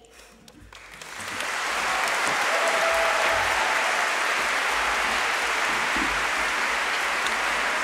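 A large audience breaks into applause about a second in and keeps clapping steadily as a standing ovation.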